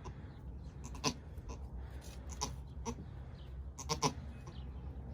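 Nigerian dwarf goat doe in labour giving short, strained bleats, a few brief cries spaced about a second apart, as she rests between pushes.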